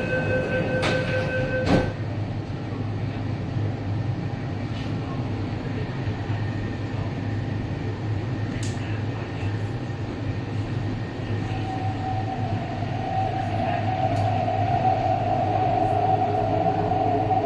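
Cabin noise of an MTR East Rail Line train under way: a steady rumble and hum with a few clicks. A set of steady tones stops with a sharp click about two seconds in. From about twelve seconds a motor whine sets in and grows louder.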